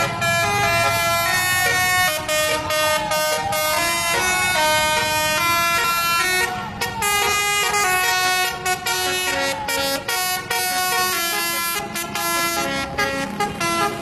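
Bus telolet horn playing a tune of short, stepped air-horn notes over the bus's engine.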